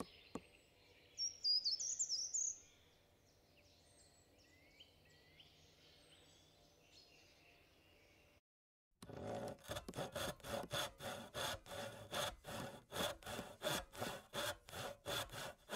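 A songbird sings a short, high phrase, with faint chirps around it. After a brief silent break, a hand saw cuts wood in quick, even strokes, about two or three a second.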